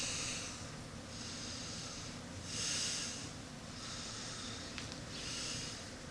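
A man breathing: about five faint, noisy breaths, each under a second long and spaced a little over a second apart.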